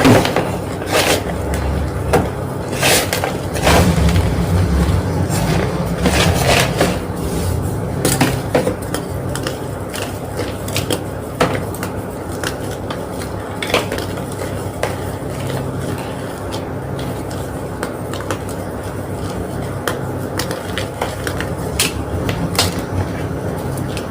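Homemade gym chalk block being crushed, giving irregular sharp crunches and cracks that come thickly for the first ten seconds or so and more sparsely after, over a steady hiss.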